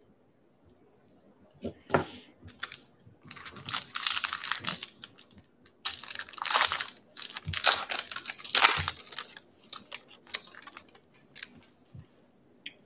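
A foil wrapper of a 2020 Bowman baseball card pack being torn open and crinkled by hand, in a run of crackling rips and rustles that starts about a second and a half in and dies away shortly before the end.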